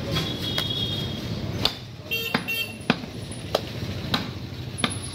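Butcher's knife striking beef on a round log chopping block: about seven sharp knocks, roughly one every two-thirds of a second, over a steady background hum. A brief high ringing tone sounds in the first second or two.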